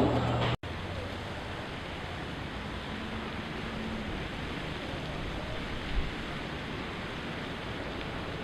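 A steady outdoor rush of wind and water beside the sea, which cuts in suddenly about half a second in after a brief dropout. There is one short low thump about six seconds in.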